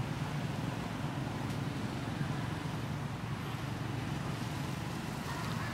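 A steady low rumble with no distinct events in it.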